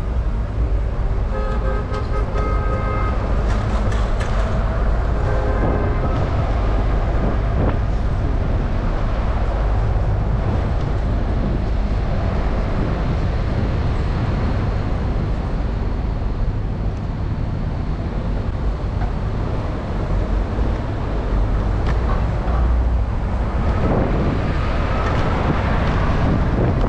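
Steady, loud road and traffic noise with a low rumble, heard while riding a bicycle. A few brief pitched tones, like a horn toot, come in the first few seconds.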